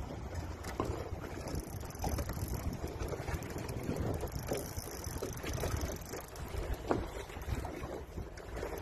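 Wind buffeting the microphone in a low, steady rumble, with choppy water slapping irregularly against the boat's hull.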